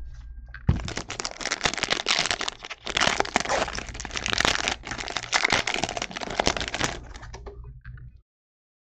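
Foil trading-card pack wrapper crinkling and crackling as hands tear it open and pull the cards out. The sound stops suddenly near the end.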